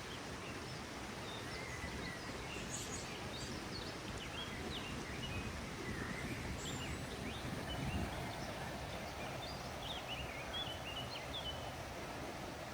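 Small birds chirping with many short, quick high notes over a steady low outdoor rumble. A soft rushing sound grows stronger about halfway through.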